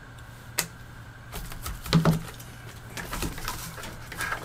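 Hands handling plastic kit parts in a plastic tray: a single click, then irregular clicking and rustling with a louder clatter about two seconds in. A faint steady electrical hum runs underneath.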